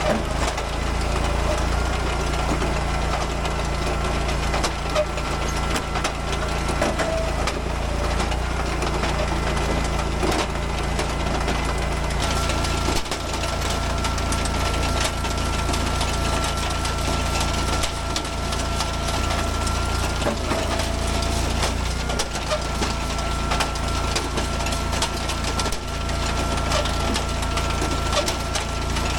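Gas engine of an Eastonmade AXIS hydraulic wood splitter running steadily with a thin whine, while maple rounds crack and splinter apart under the wedge and split pieces clatter.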